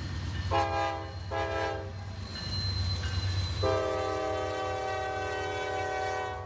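Train horn sounding a chord: two short blasts of about half a second each, then one long blast of nearly three seconds that cuts off sharply, over a steady low rumble.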